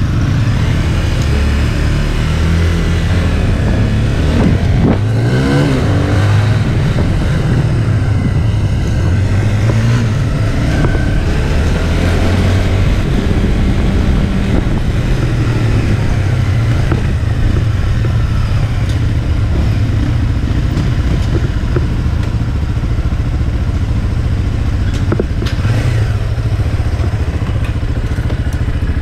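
Police patrol motorcycles riding through streets. The engines run steadily, and the revs rise and fall around five seconds in.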